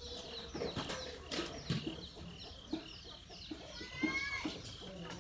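Birds chirping: a run of short, high, falling chirps at about two a second, with a louder drawn-out call about four seconds in and a few faint knocks.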